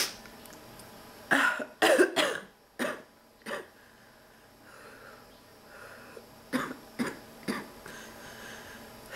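A sick woman coughing in fits: a run of about five harsh coughs from about a second in, a pause, then three short coughs near the end. It is the persistent cough of a throat illness she is struggling to shake off.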